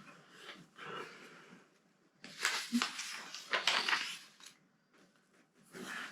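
Plastic Lego pieces clicking and rattling as they are handled and pressed together, busiest for about two seconds in the middle.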